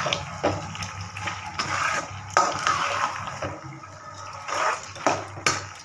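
Metal spoon stirring thick chicken gravy in a metal pan: wet sloshing with irregular scrapes and clinks of the spoon against the pan, over a low steady hum.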